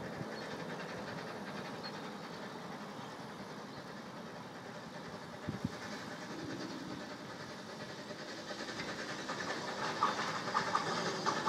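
Peckett saddle-tank steam locomotive approaching with a train of coaches: a faint, steady running and hissing sound with a single knock about halfway through. Near the end it grows louder, with a scatter of wheel clicks on the track.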